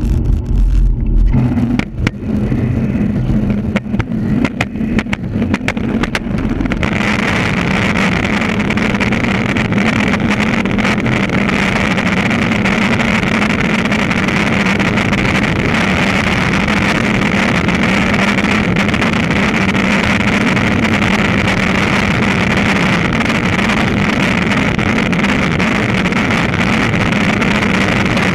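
Skateboard wheels rolling, heard from a camera mounted on the board: for the first six or seven seconds irregular knocks and clatter, then a steady loud roar of the wheels on asphalt at speed down a hill.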